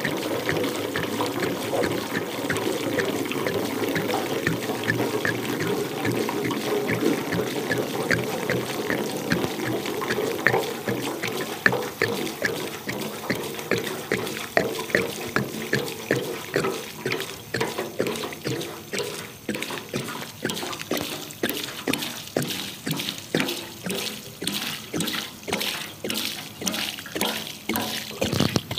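Electrolysis water draining from a John Deere 630 gas tank's outlet pipe and splashing onto grass. It pours as a steady rush at first, then from about halfway it turns into a pulsing gush, about two surges a second.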